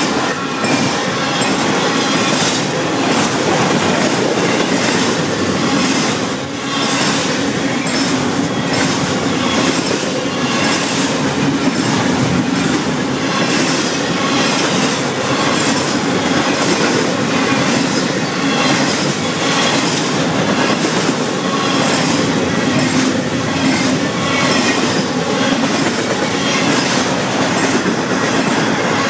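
Florida East Coast Railway intermodal freight train of container well cars rolling past at a grade crossing. Its wheels clatter in a steady, even rhythm over the rails.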